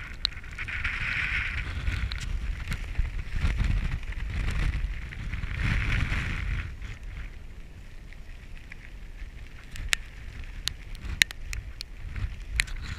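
Strong gusting wind buffeting the microphone, surging and easing in a few big gusts with a hiss riding on them. Wind dies back in the second half, where a scattering of sharp clicks and ticks comes through.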